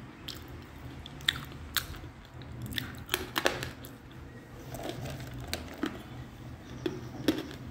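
Biting and chewing a chunk of white edible clay: sharp, dry crunches at uneven intervals, about eight in all, over a faint low hum.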